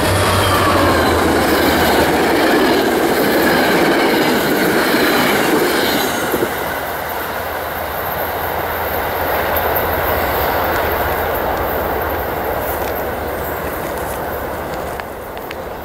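New Jersey Transit GP40PH-2B diesel locomotive and its passenger coaches passing close by at speed: steady engine hum with wheels rattling and squealing on the rails, and falling whistling tones early on. About six seconds in the train clears and the sound drops to a lower, fading rumble as it goes away.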